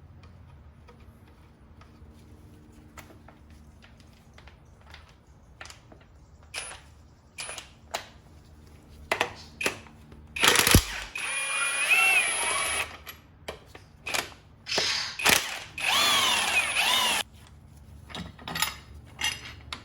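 Hand tools clicking and knocking on metal, then a handheld power tool running in two spells of about two seconds each, its motor pitch rising and falling, as fasteners are worked off the engine during the teardown.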